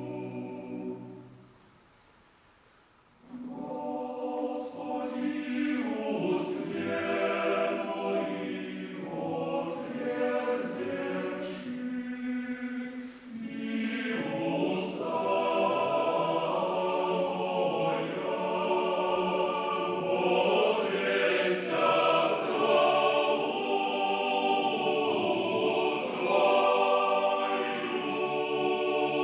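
Male choir singing an Orthodox sacred piece a cappella, in several parts. A held chord dies away about a second in, there is a short pause, and then the choir comes back in and sings on.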